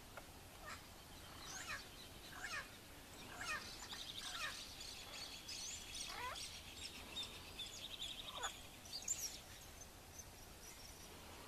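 White-faced whistling ducks calling: a string of clear, thin whistles, each sliding steeply in pitch, spread across the whole stretch. A rapid high trill runs behind them for several seconds in the middle.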